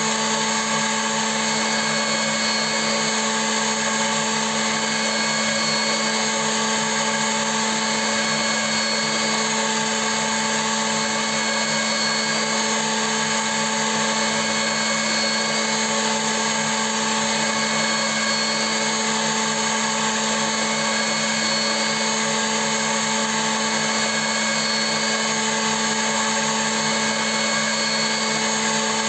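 CNC milling machine running steadily: a constant motor hum with several fixed whining tones above it, holding the same pitch throughout.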